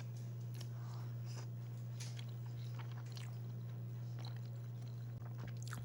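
Close-up chewing and biting of chicken and vegetable soup dumplings: scattered small wet mouth clicks, over a steady low hum.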